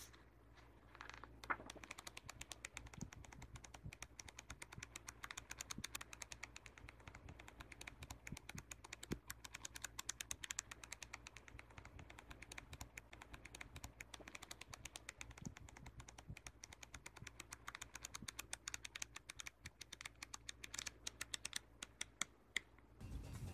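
Paper pages of a flipbook being thumbed through, each page snapping off the thumb in a fast, dense run of light clicks.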